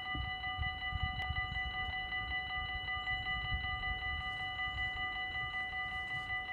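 Dutch level-crossing warning bell ringing with a rapid, evenly repeated metallic strike, still sounding as the barriers lift at the end of the crossing cycle. A low rumble runs under it for the first few seconds.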